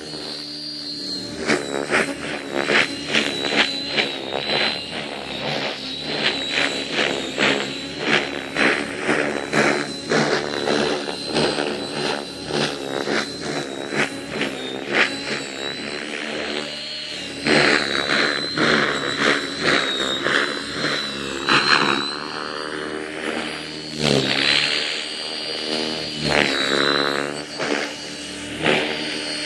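Align T-Rex 550E electric RC helicopter in aerobatic flight: its rotor blades chop and swish in quick, repeated surges as it flips and pitches, over a steady high-pitched whine from the brushless motor and gears.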